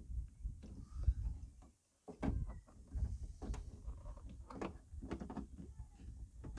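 Irregular knocks, clicks and scraping clunks of plastic trim and metal as a car's rear seatbelt assembly is worked loose by hand.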